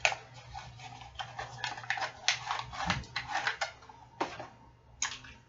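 Irregular clicks and light clattering of a boxed bobblehead and its packaging being handled and opened by hand.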